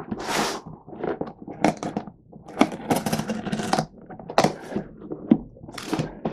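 A knife slicing through packing tape on a cardboard box, with scraping, sharp clicks and knocks as the cardboard is handled. The box flaps are pulled open near the end.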